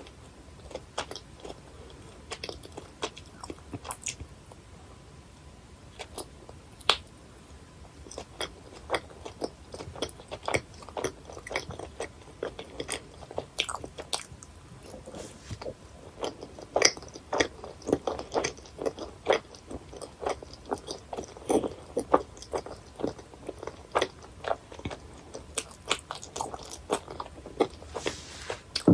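Close-miked chewing of chewy jelly candy: a run of short, sharp, wet mouth clicks and smacks, sparse at first and coming several a second from about a third of the way in.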